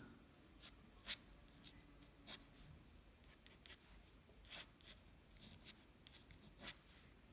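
Faint scratching of an ink pen on drawing paper, in short irregular strokes as a new figure is sketched.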